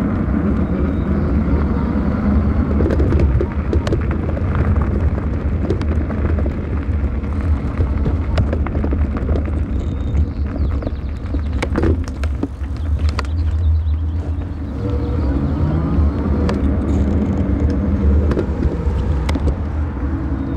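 Steady low rumble of wind and tyre noise while riding a bicycle, picked up by a camera on the bike. Sharp clicks and rattles come scattered through it as the bike rolls over bumps.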